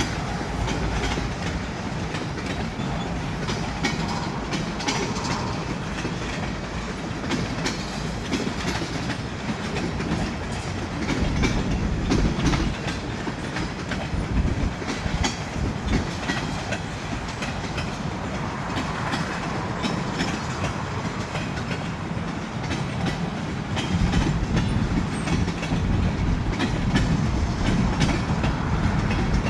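Canadian National freight train rolling past, its wheels clicking over the rail joints in a steady run of clacks with the rumble of the cars; it gets louder toward the end.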